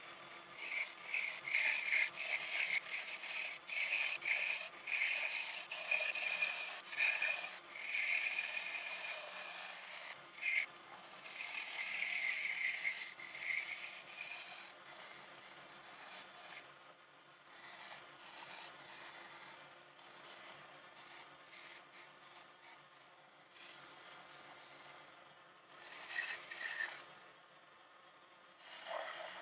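Chisel cutting a spinning pine spindle on a small wood lathe: a rough scraping of tool on wood that comes in uneven bursts. The cuts are heavy in the first half, lighter and more broken after about fifteen seconds, and stop near the end.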